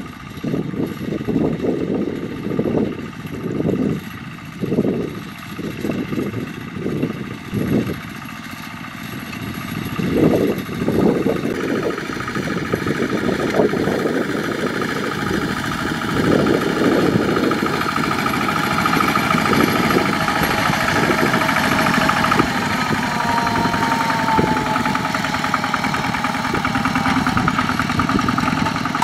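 Single-cylinder diesel engine of a two-wheel walking tractor running while it pushes rice straw. For the first ten seconds or so it swells unevenly about once a second, then settles into a steadier, louder run.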